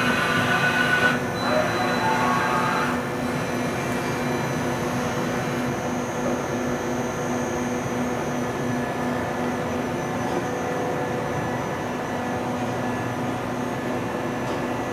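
Mori Seiki MV-40 CNC vertical machining center running under power: a steady mechanical hum with several held tones. A set of higher tones shifts and stops about three seconds in.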